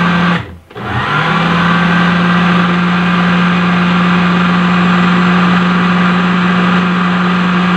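Food processor motor running while it mixes and chops dry detergent powder (grated bar soap, borax, washing soda, baking soda). It hums steadily, cuts out briefly about half a second in, then spins back up to speed.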